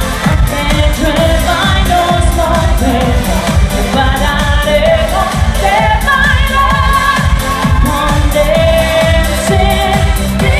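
Live pop song played loud over a concert PA: a woman's voice singing long wavering notes over a pounding bass and drum beat.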